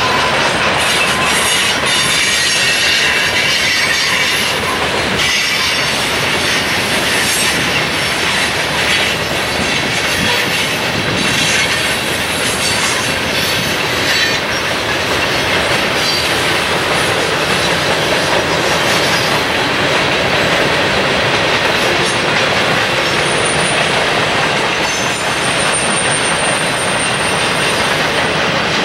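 Freight cars of a long manifest train rolling steadily past: a continuous rumble and clatter of steel wheels on rail, with a thin high wheel squeal briefly near the end.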